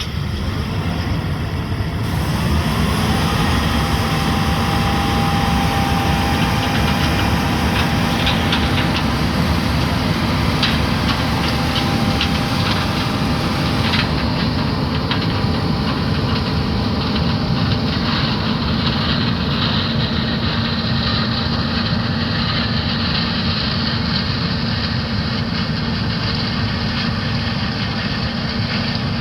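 Heavy diesel farm machinery running steadily under load, with a steady whine over the engine. It gets louder about two seconds in, and a few light ticks come through between about eight and twelve seconds in.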